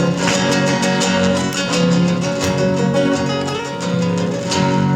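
Acoustic guitars playing an instrumental passage of Argentine folk music, with quick strummed chords and plucked notes.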